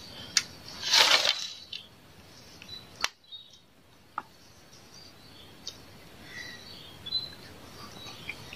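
Faint birds chirping over quiet open-air ambience, with a brief rushing swish about a second in and a single sharp click about three seconds in, as a fishing pole rod is handled and cast.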